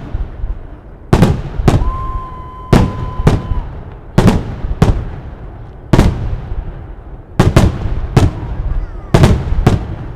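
Fireworks shells bursting overhead: about a dozen loud, sharp bangs at irregular intervals, some in quick pairs. A steady high tone sounds for about a second and a half starting about two seconds in.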